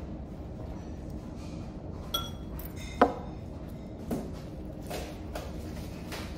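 Tableware clinking at a meal: metal chopsticks and ceramic bowls. There is a ringing clink about two seconds in, a sharper knock a second later and a few softer taps after it, over a steady low hum.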